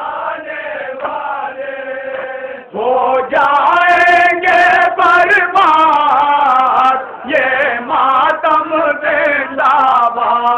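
A man chanting a nauha, a Shia mourning lament, into an amplified microphone, with long held notes and other men's voices joining in. The chanting grows much louder a few seconds in.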